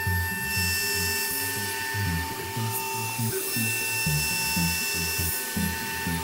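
CNC router spindle running at 18,000 RPM with a steady high-pitched whine while a 25.4 mm face mill skims the top of an aluminium block, with a hiss of cutting and flying chips. Background music with a steady beat plays underneath.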